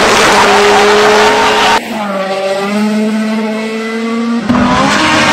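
Rally cars at full throttle. For the first two seconds a car runs loud with engine and tyre noise; this cuts off abruptly to a quieter, steady engine drone from a car not yet close. About four and a half seconds in, another car arrives loud, its engine revving up and down.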